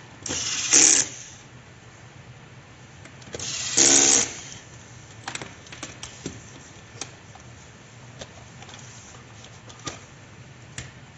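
Cordless electric screwdriver whirring in two short bursts, each lasting about a second, driving in the screws of a robot vacuum's bottom cover. Light clicks and knocks follow as the plastic vacuum body is handled and turned over.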